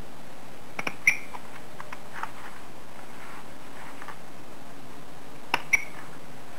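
Folded paper units rustling as they are pressed together into an origami kusudama ball, over a steady hiss. Two pairs of sharp clicks with a brief metallic ring, about a second in and near the end.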